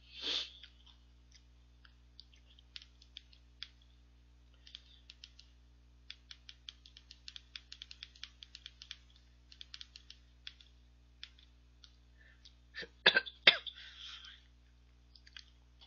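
Light, irregular clicks of fingers tapping and typing on a smartphone screen, quickest a few seconds in. A short puff of noise comes at the start, and near the end there are a few louder knocks and a brief rustle.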